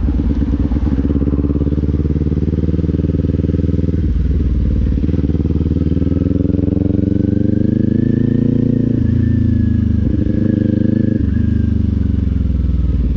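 2024 Kawasaki Z400's parallel-twin engine running through a Leo Vince aftermarket exhaust while riding. The engine note climbs for a couple of seconds about halfway through and then eases off, with a few abrupt changes in tone along the way.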